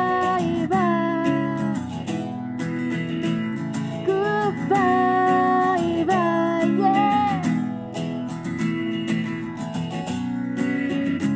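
Acoustic guitar strummed steadily under a woman's voice singing long held notes; the singing stops about two-thirds of the way in and the guitar strumming carries on alone.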